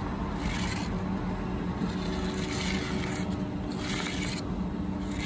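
Pencil scribing a level line along a spirit level on brickwork and mortar: a few separate scraping strokes, with a steady low engine hum underneath.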